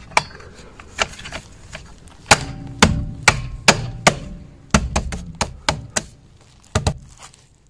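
A series of about fifteen irregular sharp metallic knocks and clanks from tools and car parts being handled. Several in the middle ring briefly with a metal tone.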